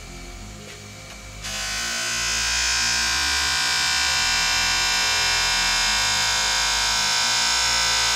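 Stainless steel window frame held against a spinning cloth buffing wheel on a bench polisher, making a loud, steady high whine that starts about a second and a half in. Background electronic music with a beat plays underneath.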